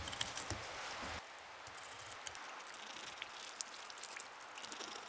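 Fingers scraping and packing wet snow for about a second, then a faint steady hiss with scattered soft ticks.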